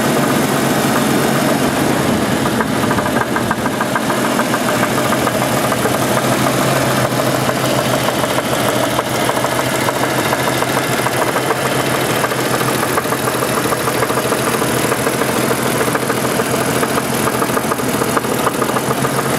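1988 Jeep Cherokee's 4.0-litre straight-six idling steadily with a repeating knock from inside the engine, which the owner guesses is piston slap rather than rod knock.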